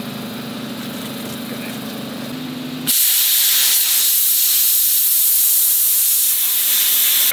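A steady low hum, then about three seconds in a Hypertherm Powermax45 plasma cutter's arc strikes with a sudden loud hiss that holds steady as the torch cuts through steel.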